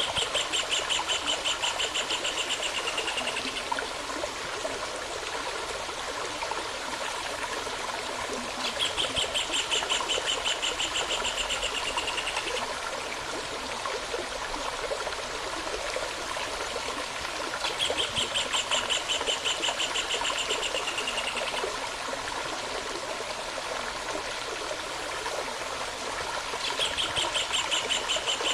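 Running stream water burbling steadily, while a songbird sings a rapid trill of about three and a half seconds, slightly falling in pitch, repeated four times at intervals of about nine seconds.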